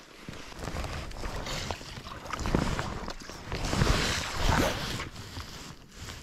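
Wind buffeting the microphone and rain-jacket rustle, swelling several times as a fly rod is cast, over the hiss of rain falling on the river.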